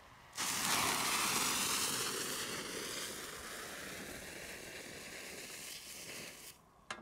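A lit firework burning with a loud, steady hiss that fades slowly and stops abruptly, with a short click near the end.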